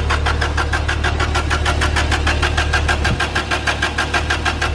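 Subaru EJ20 turbo flat-four being cranked on its starter without firing, its camshaft sensor unplugged to kill spark and fuel so it can build oil pressure after months standing. The cranking beats evenly at about seven a second over a steady low hum.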